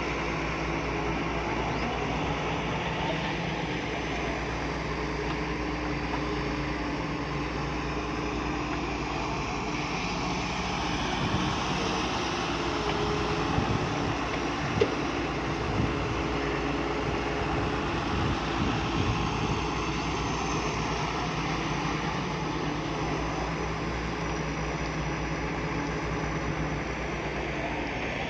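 Heavy diesel engine of earthmoving machinery running steadily under work, with a few short knocks about halfway through.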